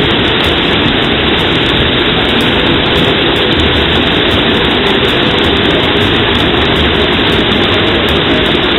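Hot spring water pouring vigorously down rock channels: a loud, steady rushing.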